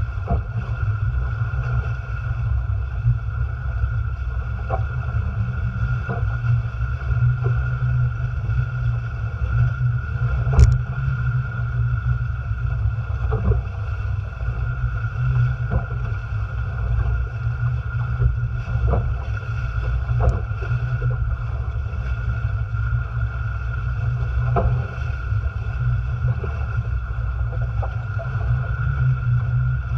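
Water rushing and splashing past the hulls of a Haines Hunter Tramp folding trimaran sailing fast through chop, under a heavy low rumble of wind on the boat-mounted camera. Scattered short knocks run throughout, with the sharpest about ten and a half seconds in.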